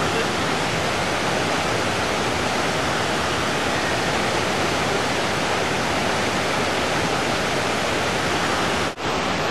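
A waterfall pouring into a rocky river pool, a steady, even rush of water. It briefly cuts out near the end.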